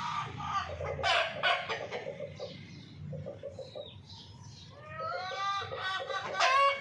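Domestic hens clucking and calling, with a burst of calls about a second in, soft rapid clucks in the middle, and a rising run of louder calls near the end.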